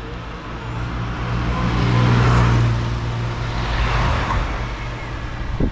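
A motor vehicle passing close on the road: a low engine hum and tyre noise swell to a peak about two seconds in, swell again around four seconds, then fade.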